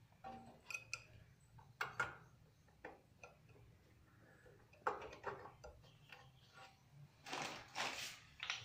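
Faint, irregular metallic clicks and taps as copper refrigerant tubing is handled around a refrigerator compressor, with a few louder scraping rustles near the end.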